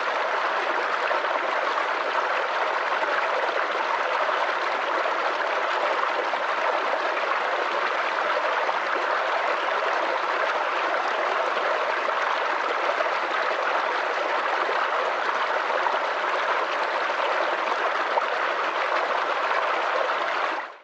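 Flowing stream water, a steady, even rush with no pauses, cutting off abruptly at the very end.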